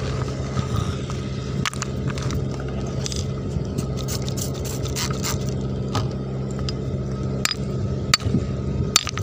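Stones clicking and scraping against one another as rocks are picked up and turned over on a pebble riverbed, with sharper knocks near the end. Under it, the steady drone of an engine running.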